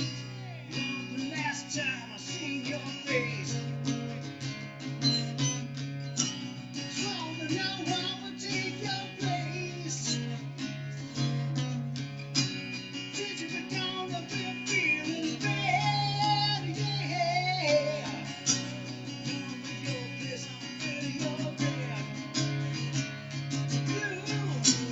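Gretsch Jim Dandy acoustic guitar being played, a continuous run of plucked notes, some of them bending in pitch.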